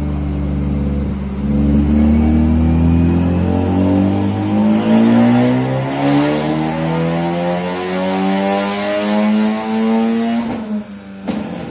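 Honda Civic Type R FL5's 2.0-litre turbocharged four-cylinder running through an RSE Type-D titanium exhaust, its revs climbing steadily for about eight seconds, then cut off suddenly near the end. A single sharp crack follows shortly after the let-off.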